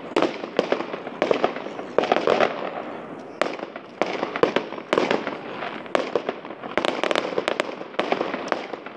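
Aerial firework shells bursting in quick succession: a dense, irregular run of bangs, several a second and often overlapping, each with a short echo.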